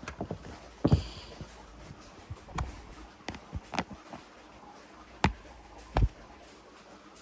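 Wet belongings being handled and set down on a table: a series of irregular knocks and taps, about six over several seconds.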